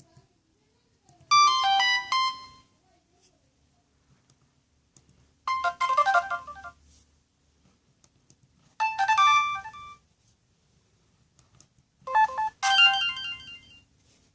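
Samsung E2121B ringtone playing through a Sony Ericsson W595 phone's loudspeaker: four short phrases of quick, high electronic notes, each about a second long and three to four seconds apart.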